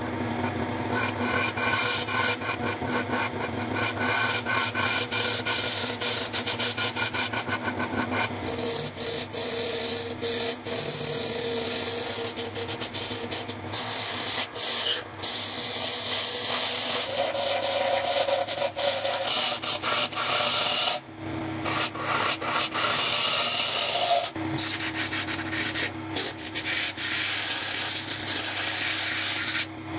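Homemade belt-driven wood lathe spinning a wooden plate, its motor running steadily underneath. For the first eight seconds or so a gouge scrapes across the turning wood. After that comes a brighter, hissier rubbing of sandpaper pressed against the spinning plate.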